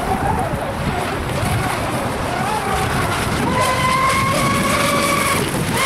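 Radio-controlled speedboat's motor whining at speed, its pitch rising and falling with the throttle, then held high and steady for a couple of seconds before dropping near the end, over a steady rush of noise.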